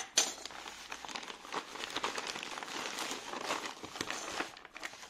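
Plastic courier mailer bag crinkling and rustling as it is handled, with a sharper crackle just after the start and quieter rustling toward the end.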